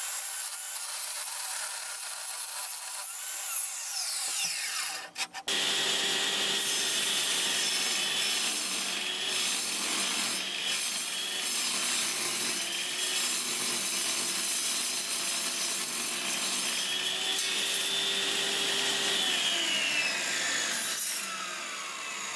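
Table saw blade cutting through aluminium plate: a loud, steady, harsh cutting noise with a high whine, after a brief break about five seconds in. Near the end the whine falls in pitch and the noise drops away.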